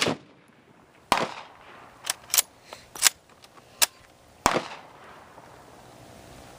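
A string of rifle gunshots, about seven in the first four and a half seconds, too close together for one bolt-action rifle, so more than one gun is firing. Some shots are heavier, with a long echoing tail; others are sharper and shorter.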